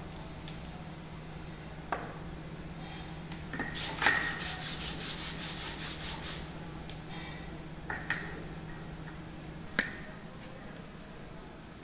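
Aluminium hydraulic gear pump housing scrubbed back and forth on sandpaper over a flat steel plate, lapping its mating face flat. It makes about a dozen quick, even rasping strokes, some five a second, for a couple of seconds in the middle. A few sharp metal clicks come before and after, over a steady low hum.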